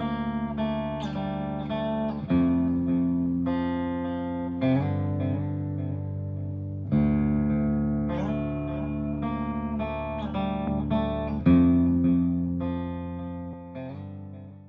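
Instrumental music: a plucked guitar melody over held low notes, changing chord every few seconds and fading out near the end.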